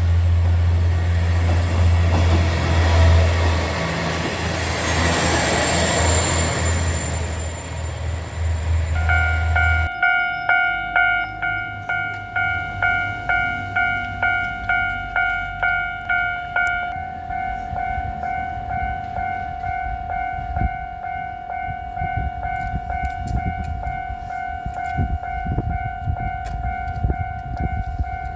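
A KiHa 47 diesel railcar passes with a low engine hum and rail noise that fades out about ten seconds in. A Japanese level crossing's electronic warning bell then starts its repeated "kan-kan" ringing, about two strokes a second, and keeps going.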